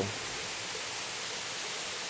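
Steady rush of a waterfall's falling water, an even hiss with no change.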